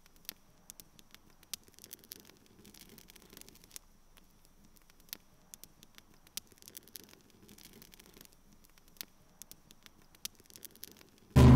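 Faint, irregular clicks and crackles over a low hiss, with a faint high whine held underneath. Near the end, loud electronic music starts suddenly.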